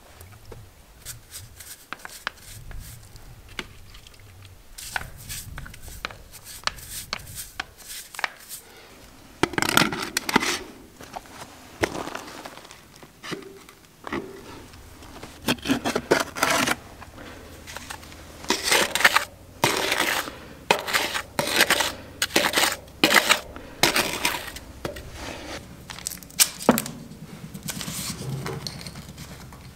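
Irregular scraping, crackling and knocking of a PVC pipe being handled and worked against the concrete edge of a water tank's opening. The noises come sparse at first, then loud and frequent from about ten seconds in.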